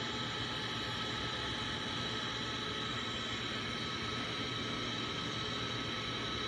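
Minute Key automated key-cutting kiosk running while it cuts a house key: a steady whir with a faint high whine that does not change.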